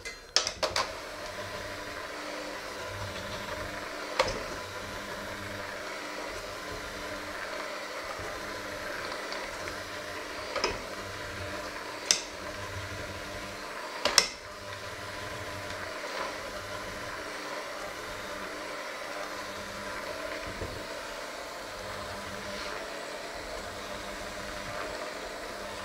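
Electric hand mixer with dough hooks running steadily in a stainless steel bowl, kneading a flour dough; it starts up right at the beginning. A few sharp knocks come as the hooks strike the metal bowl.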